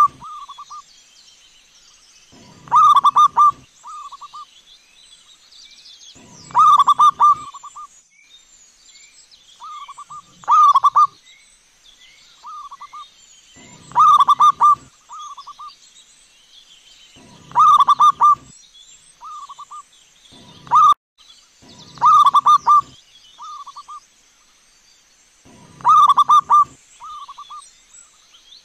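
Zebra dove (perkutut) cooing: a short phrase of rolling coos repeats about every four seconds, some eight times. Behind it are faint chirps and a faint steady high-pitched whine.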